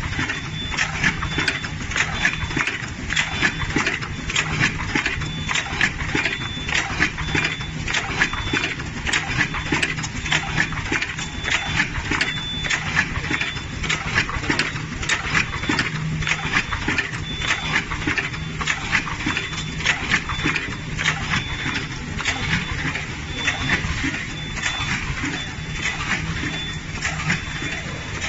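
Automatic coffee capsule filling and sealing machine running, with a constant rapid clatter of clicks and knocks from its indexing and sealing mechanism over a steady low hum. A high tone pulses on and off throughout.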